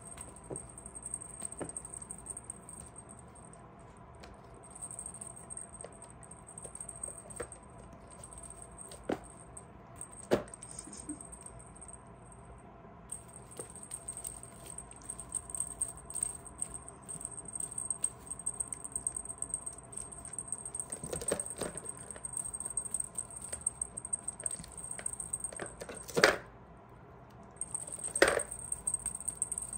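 Small bell on a feather wand cat toy jingling in a thin, high, near-constant shimmer as the wand is waved, stopping briefly now and then. Kittens pouncing give a few soft thumps, the loudest about 26 seconds in.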